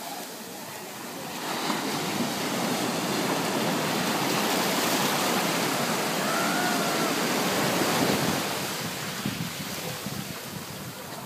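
Ocean surf washing up over the sand at the waterline. The rush of water swells about a second and a half in, holds, and falls away after about eight seconds.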